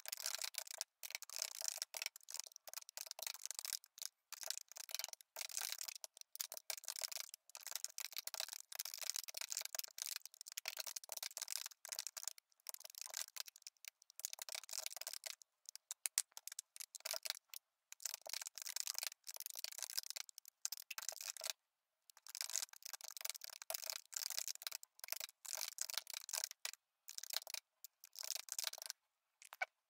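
Computer keyboard being typed on in a fast, continuous clatter of key clicks, broken by brief pauses.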